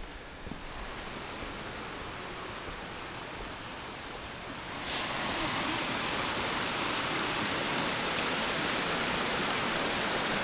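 Rushing water of a rocky mountain creek, a steady hiss that jumps louder about halfway through and holds.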